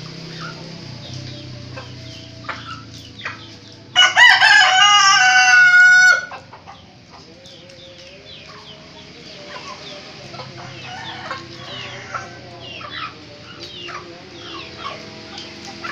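A domestic rooster crows once, loudly, about four seconds in: a crow of about two seconds that holds its pitch and then cuts off. Short, quieter clucks from the chickens are scattered through the rest.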